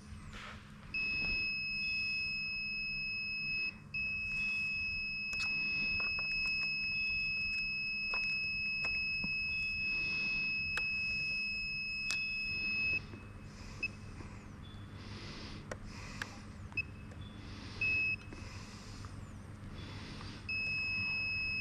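Insulation resistance tester sounding a steady high beep while it applies its test voltage to a battery module's terminal. The beep is held for about three seconds, then for about nine, then comes as a few short blips, and starts again near the end.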